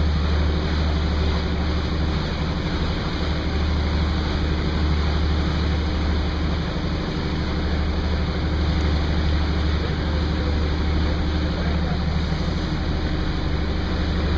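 A boat's engine running with a steady low drone, under an even hiss of wind and water rushing past.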